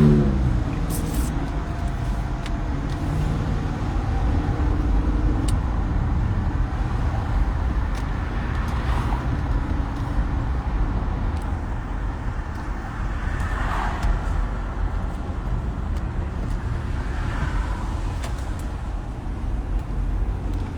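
Steady low road and engine rumble heard from inside a moving car's cabin, with a few brief swells of noise along the way.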